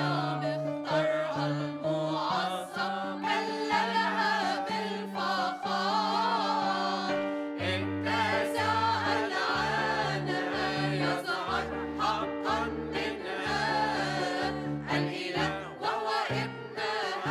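Mixed choir of women and men singing a hymn together in long, sustained phrases.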